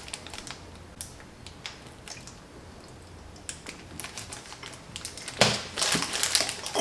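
Foil snack wrapper crinkling in the hands: scattered light crackles, then louder, denser crackling near the end.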